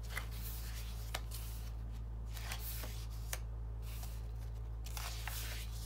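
Paper pages of a handmade journal being turned and handled: soft rustles and slides with a few light ticks, about one every second, over a steady low hum.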